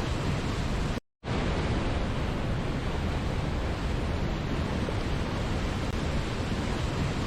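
Waterfall rushing in a steady, even roar of falling water. About a second in, it cuts out completely for a fraction of a second and then resumes.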